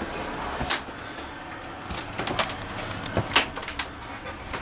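Light clicks and knocks of furniture doors and fittings being handled: one about a second in, then a quick cluster around two seconds and a few more just past three seconds.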